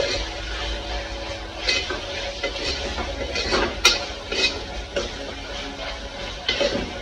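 A metal spoon scraping and clinking against the inside of a metal pressure cooker as onions and tomatoes are stirred while frying in oil, with one sharp clink just before the four-second mark.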